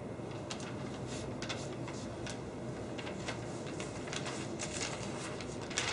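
Quiet room tone with a few faint, scattered taps and rustles, the clearest one near the end.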